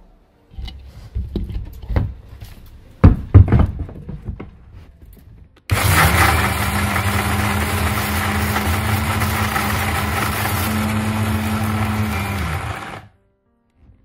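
A few knocks as the steel jar is set on its base, then an electric mixer grinder runs for about seven seconds. It is grinding dry soapnut shells, shikakai pods, chana dal and fenugreek into powder. Its motor hum rises as it spins up and sags as it is switched off near the end.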